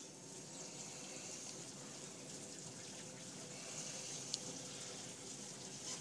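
Hobart commercial dishwasher filling its tank with water from a hose: a faint, steady rush of running water.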